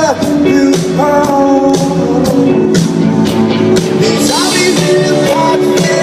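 A rock band playing a song live, with pitched melody and chords over a steady drum beat.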